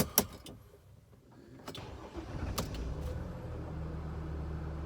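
Clicks of the key in the ignition, then a Mercedes Sprinter van's engine cranks and starts about two and a half seconds in, settling into a steady idle. No seatbelt warning chime sounds, as the buckle is bypassed.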